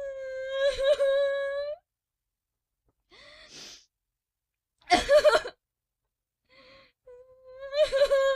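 A voice crying as a comic sound effect: a long, high, held wail at the start, breaks of sobbing gasps, a short loud sob around five seconds in, then a second long wail near the end.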